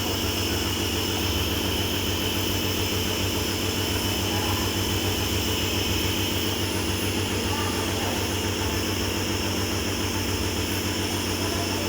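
Electric compressor nebulizer running steadily: a constant low motor hum with an even hiss of air and mist.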